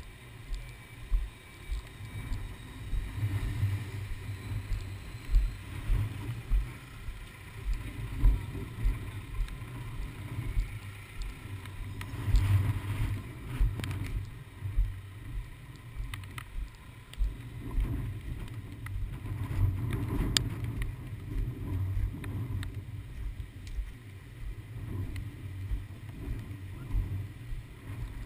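Wind buffeting the microphone: a low, uneven rumble with frequent soft thumps.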